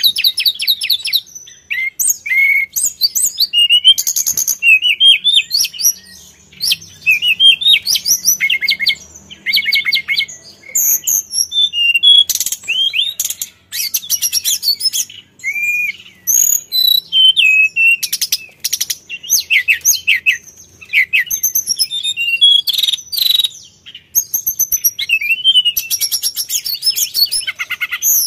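Hill blue flycatcher singing vigorously: a long run of high, clear whistles, slurred glides and fast rattling trills, in phrases of a few seconds separated by short pauses.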